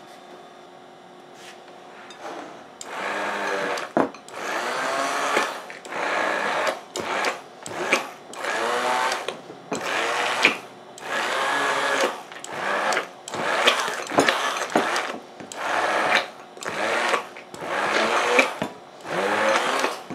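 Cuisinart immersion (stick) blender pureeing ripe bananas in a glass bowl, pulsed on and off in short bursts of about a second, roughly a dozen times, starting about three seconds in.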